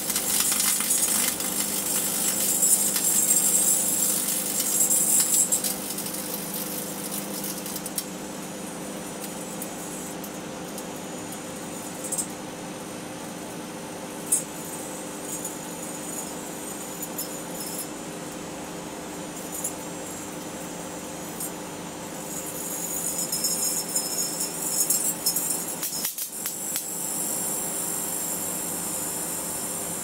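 Microwave oven running with a steady hum while the sealed beam headlamp inside glows and arcs, giving a loud crackling sizzle for the first several seconds and again from about 22 seconds in. The sound briefly drops out just after 26 seconds.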